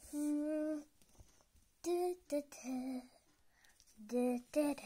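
A girl's voice singing or humming a short tune without words: a long held note at the start, then a few shorter notes at different pitches with pauses between them.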